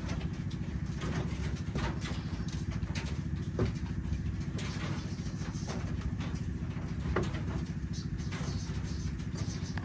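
A motor or engine running steadily with a low, fast, even pulse, and a couple of light knocks over it.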